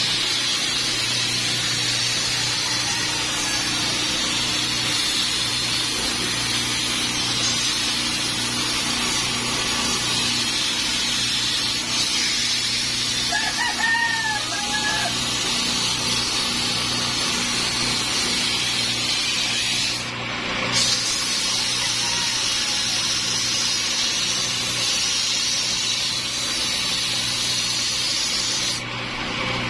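A small electric motor drives a homemade cue lathe, spinning a pool cue steadily with a constant hum and hiss while old glue is rubbed off the cue's handle by hand. About 14 seconds in, a rooster crows once, briefly.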